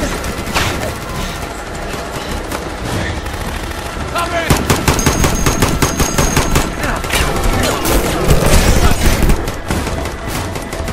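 Battle sound mix of rapid, overlapping automatic gunfire, machine-gun and rifle shots in quick succession, growing denser and louder in the middle of the stretch.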